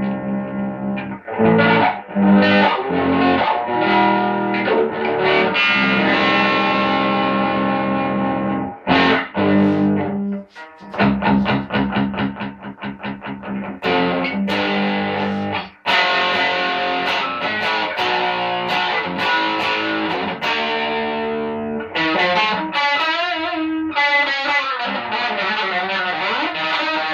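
Electric guitar played with heavy distortion through a homebuilt single-ended tube amplifier running 1930s AF7 and AL4 pentodes. Ringing distorted chords alternate with fast, choppy repeated picking, with a few brief stops in between.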